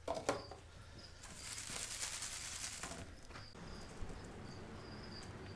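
Folded paper slips rustling in a wicker basket as they are tipped in and stirred by hand, with a couple of light clicks near the start. A faint high chirp repeats in the background.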